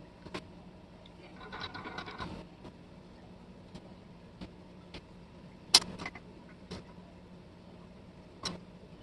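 A screwdriver and small screws clicking and tapping against the brass plate of a cast-iron label paster: scattered sharp metallic clicks, the loudest about six seconds in, with a short scraping rattle between about one and two and a half seconds in. A faint steady hum lies underneath.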